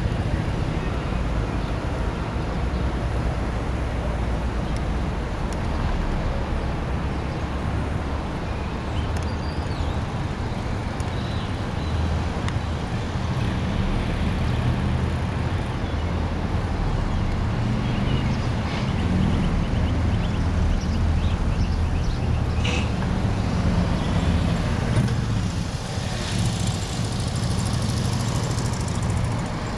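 Low, steady engine rumble of slow-moving road vehicles close by: a pickup truck and a tractor-trailer creeping along a street, with a few brief clicks and knocks.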